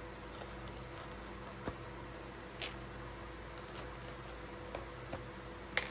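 A few faint clicks and taps as slim black pillar pieces are pressed out of a laser-cut model-kit parts sheet and handled, over a steady low room hum.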